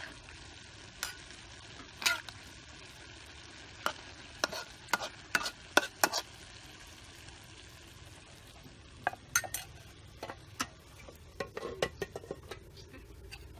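Ginger and fish sizzling in an aluminium wok while a metal ladle stirs and scrapes them, clinking sharply against the pan many times.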